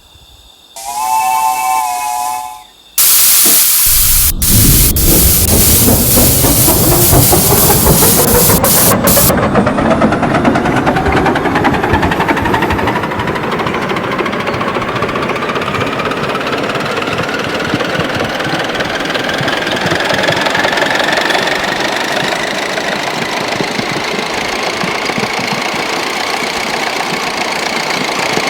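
A 5-inch gauge miniature steam locomotive gives a short chord whistle about a second in. From about three seconds a loud rush of steam hiss runs for several seconds. A running sound follows whose pitch rises slowly and steadily to the end.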